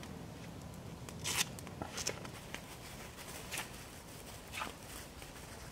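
Wood campfire burning with a low steady rumble and several short dry crackles; the loudest crackle comes about a second and a half in.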